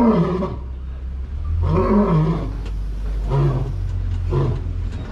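A lion roaring: two long, deep roars, then a run of shorter grunting roars about a second apart, over a steady low hum.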